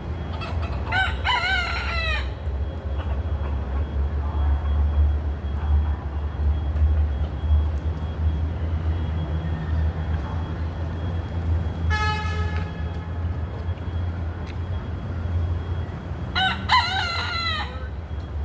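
A rooster crowing twice, once about a second in and again near the end, over a steady low rumble of city traffic. A short steady tone sounds briefly midway.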